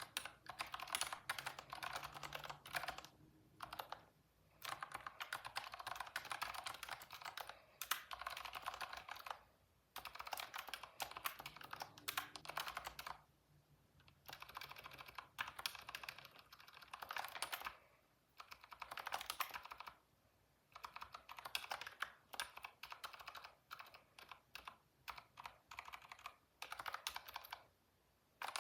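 Computer keyboard typing: bursts of rapid keystrokes lasting a few seconds each, broken by short pauses.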